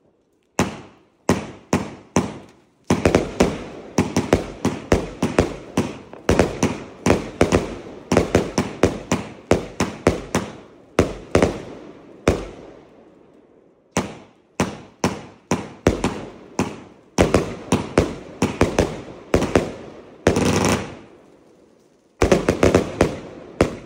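Argento Leviathan, a 100-shot 30 mm fireworks compound cake, firing shell after shell in quick runs of sharp bangs, several a second. There is a brief lull just past the middle and another near the end before the firing picks up again.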